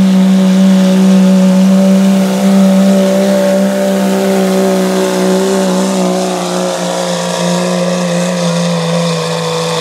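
Dodge Ram pickup's Cummins inline-six diesel held at full throttle under heavy load as it drags a truck-pulling sled. A loud, steady engine drone whose pitch sags slowly as the sled's weight builds toward a full pull.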